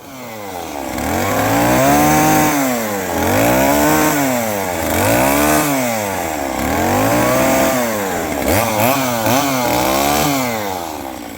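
Chainsaw revving and cutting into wood for carving, its pitch rising and falling over and over, about every second and a half, with quicker, shorter swings near the end.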